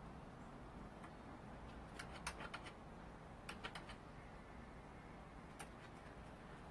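A few sharp, separate clicks or taps, in small clusters, over faint steady background noise.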